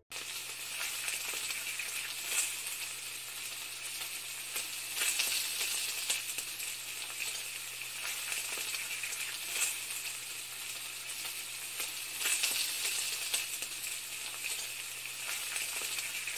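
Food sizzling in a hot pan: a steady hiss with irregular crackles and pops.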